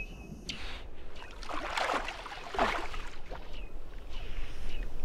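Weddell seal underwater calls: high whistles that slide downward and short steady high tones. A loud rushing, splashing noise about two seconds in, lasting over a second.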